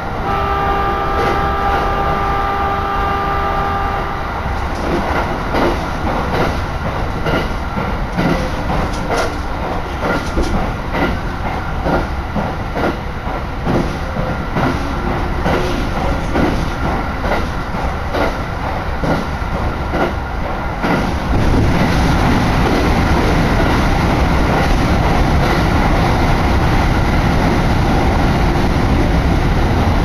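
Interior of a moving electric passenger train: wheels clattering over the rail joints, with a steady tone over the running noise for the first few seconds. About two-thirds of the way through, the noise turns into a louder, steadier rumble as the train runs into a tunnel.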